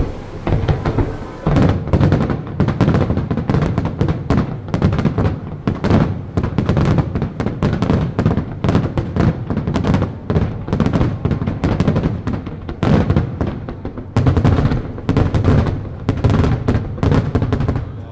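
Fireworks display: aerial shells bursting in a rapid, almost unbroken barrage, several booms and crackles a second.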